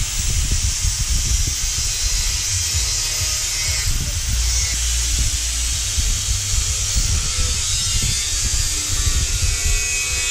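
Handheld power cutting tool running steadily as it cuts through the factory radiator mounts, a continuous high-pitched cutting noise.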